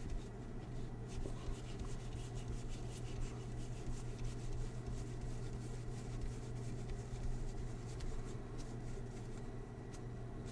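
Baseball trading cards being handled and sorted by hand: faint, soft rustles and light flicks of card against card over a steady low hum.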